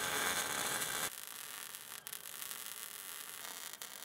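Electric arc welding on a steel beam-to-upright joint: a steady crackling hiss from the arc, louder for about the first second and then lower and even.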